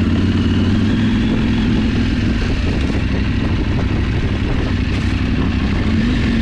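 Motorcycle engine running steadily in third gear at low speed, about 20 km/h, on a dirt trail.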